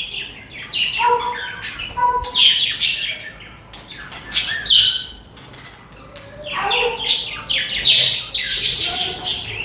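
Budgies chirping, squawking and chattering in quick runs of short calls, with a brief lull a little past halfway.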